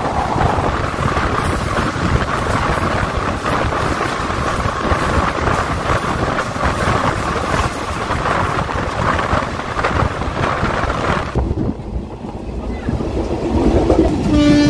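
Passenger train running out of a station, heard from an open coach door: wheel and track noise mixed with wind on the microphone, steady with no clear rhythm. Near the end, after a break in the sound, a steady horn starts sounding.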